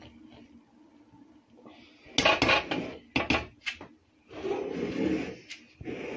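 A spoon scraping and knocking against the side of a large metal cooking pot as cooked biryani rice and chicken are gently turned over. It comes in a few short bunches of scrapes and clicks after a quiet start, with one longer scrape about four and a half seconds in.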